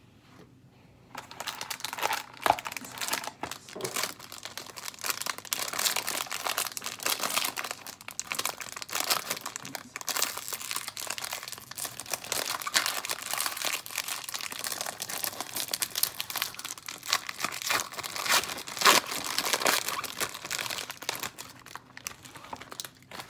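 Foil wrapper of an Upper Deck Black Diamond hockey card pack being torn open and crumpled in the hands: a dense, crackling crinkle that starts about a second in and runs on until shortly before the end.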